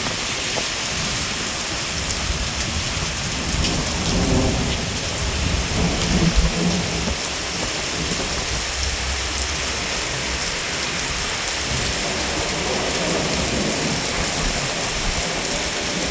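Steady heavy rain falling on the street, with a low rumble of thunder that swells about four seconds in and dies away a few seconds later.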